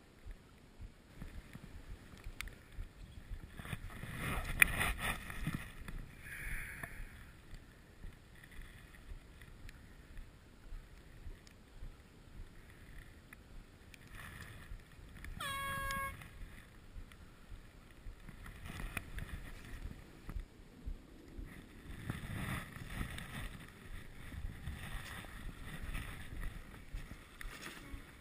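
Water lapping and splashing irregularly against a sailboat's hull, with a louder splash and a sharp knock about four to five seconds in. About halfway through, an air horn sounds once, briefly: the race committee's one-minute signal before the start.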